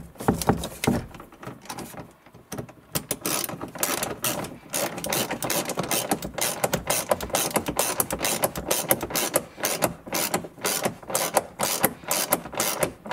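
Hand socket ratchet clicking in quick repeated strokes as a seat-mounting nut is run down and tightened. The clicking is sparser in the first couple of seconds, then runs on steadily.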